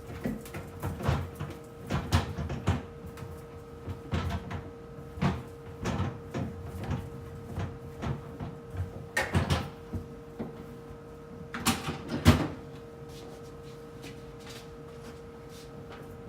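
Irregular knocks and clatters of items and fittings being handled and set down while a refrigerator is cleaned and reorganized, the loudest near twelve seconds in, then stopping. A steady hum sounds throughout.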